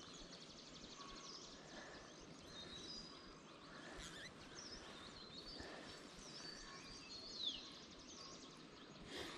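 Faint open-air ambience with scattered short, high bird chirps, one a little louder and falling in pitch about seven seconds in.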